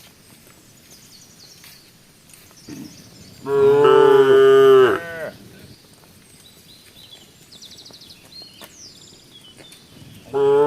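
A cow mooing twice: a long, loud moo of about a second and a half a few seconds in, and another starting near the end.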